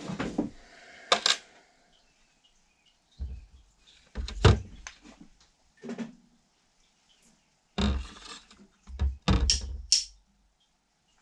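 A string of irregular knocks and clunks as objects and parts are handled and set down, with louder ones coming closer together in the last few seconds.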